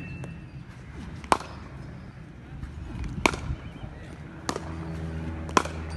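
Four sharp knocks one to two seconds apart, the crack of cricket balls being struck by bats at the practice nets, the second the loudest. A low steady drone with a steady pitched hum grows under them in the second half.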